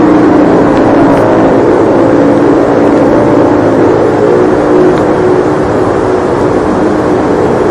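Recording of a motorcycle-like engine drone picked up underground: a loud, steady mechanical hum whose pitch drifts slowly, over a rough noisy rush. It is offered as the sound of a motorcycle moving in a North Korean infiltration tunnel, an identification that has been disputed.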